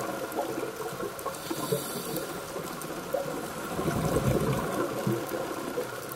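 Scuba regulator exhaust bubbling, recorded underwater, with a louder swell of bubbling about four seconds in, over a faint steady hum.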